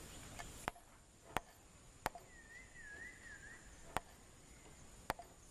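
Orangutan hammering nails into a wooden plank: five sharp, unevenly spaced knocks of a hammer on a nail.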